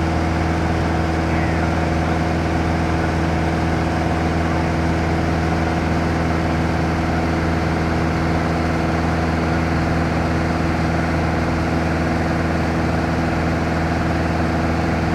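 A light touring aircraft's engine and propeller running steadily in cruise flight, heard inside the cabin as an even, unchanging hum with several steady tones.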